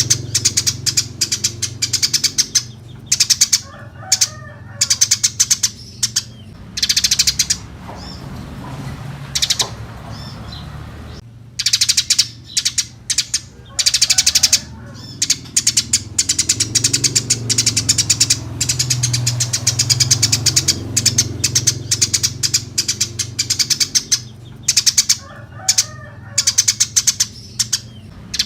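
Eurasian tree sparrows chirping busily, short high chirps run together into rapid chattering bursts that come every second or two, over a low steady hum.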